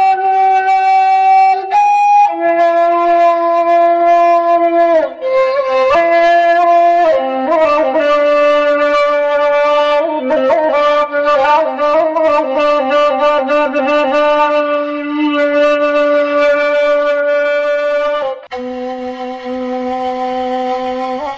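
Background music: a solo flute-like wind instrument playing a slow melody of long held notes that bend and slide between pitches. Near the end it drops to a lower, quieter passage.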